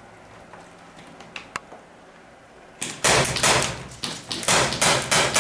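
Airsoft pistol shooting: after a few faint clicks, a quick, loud run of sharp cracks and clatter starts about three seconds in and keeps going.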